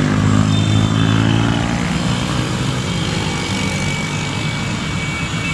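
Many small motorcycles riding past close by, their engines making a pitched drone that is loudest in the first couple of seconds and eases afterwards. A thin, steady high tone sounds faintly over the traffic in the second half.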